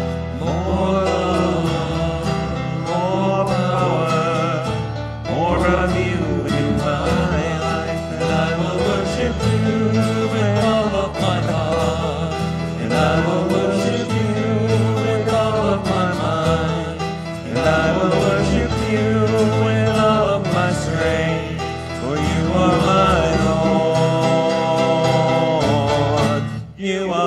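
Worship band music: a guitar-led, country-style accompaniment under a gliding melody line, dropping away briefly near the end.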